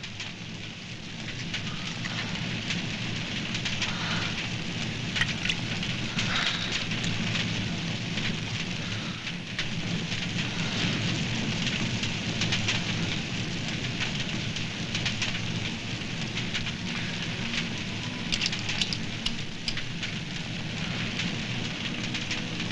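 Steady rain falling on a pool of water, an even hiss with scattered small crackles throughout.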